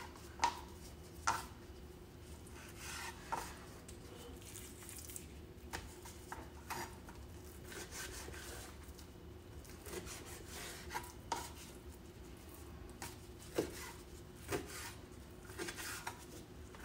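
Kitchen knife cutting raw chicken breast into cubes on a cutting board: faint, irregular taps of the blade meeting the board every second or so.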